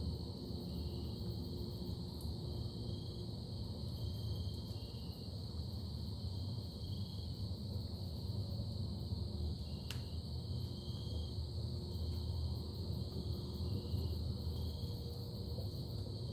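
Night ambience: a steady low rumble under a continuous high-pitched insect trill, with short faint chirps about once a second and a single sharp click about ten seconds in.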